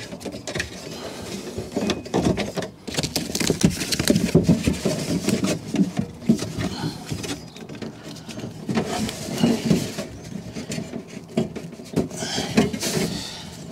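Handling noise inside a car door: the foam door membrane rustling, crackling and squeaking as an arm pushes in behind it to place a sound-deadening pad, in irregular bursts.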